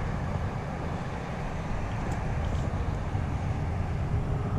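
Steady low outdoor rumble with no distinct source, with a couple of faint light clicks about two seconds in.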